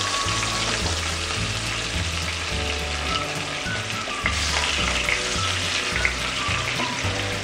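Rui fish steaks frying in hot refined white oil in a kadai, a steady sizzle that flares up about four seconds in as another steak is slid into the oil with a wooden spatula.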